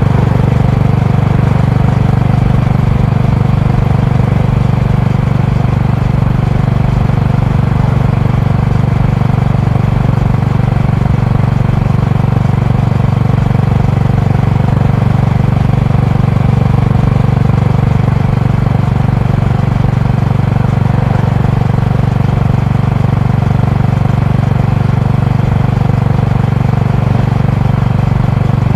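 Honda GB350's air-cooled single-cylinder engine and exhaust running steadily as the motorcycle is ridden along the road, with a low, even note.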